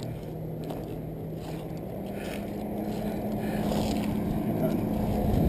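Vehicle engine running over a rough low rumble, its hum stepping up in pitch about two seconds in and getting gradually louder.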